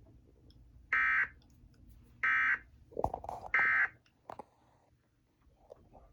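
Emergency Alert System end-of-message data tones: three short, identical buzzing bursts about a second and a half apart, signalling that the severe thunderstorm warning broadcast has ended.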